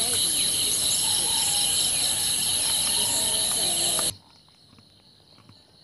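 Dense, steady, high-pitched chorus of insects with a fast pulsing, cutting off suddenly about four seconds in, leaving only faint background sound.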